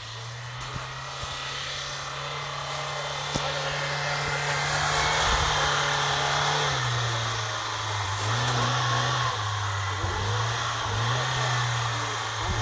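Car engine running under load, growing louder over the first few seconds, then its pitch dropping and rising again several times as the throttle is worked.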